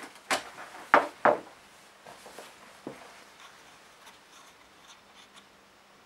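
Objects handled on a workbench: three sharp knocks in the first second and a half, then a few faint taps and rubs.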